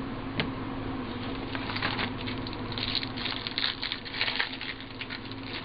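Foil trading-card pack and cards being handled: a single click, then from about a second and a half in a run of short crackles and rustles as the wrapper is crinkled.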